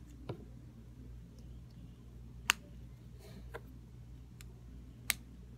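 Plastic Lego wheels being pressed onto a small vehicle's axles, giving a few sharp plastic clicks, the loudest about halfway through and near the end.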